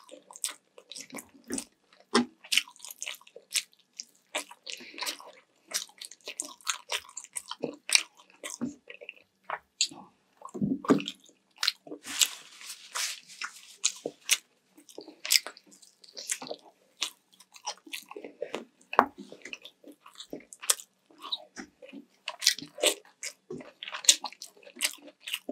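Close-miked eating: wet chewing, biting and lip-smacking on saucy sweet and sour chicken leg and rice, in an irregular string of sharp smacks, with a longer hissing, slurping stretch about twelve seconds in.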